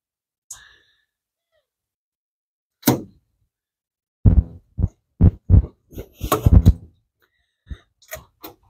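Dull thumps and knocks as a stuck rubber upper radiator hose is twisted and wrenched off its outlet by hand. There is one sharp knock, then a quick run of about eight thumps, then a few light clicks near the end.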